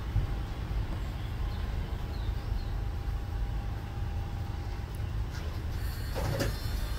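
Southeastern electric multiple-unit train standing at the platform, its equipment giving a steady low rumble with a faint held tone; a click and a short louder burst of noise come near the end.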